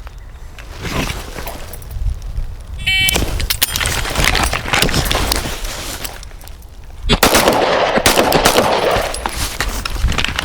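A shot timer beeps about three seconds in, then suppressed 5.56 AR-15 carbines fire a string of sharp shots. From about seven seconds in, a loud rushing noise rises under the shots.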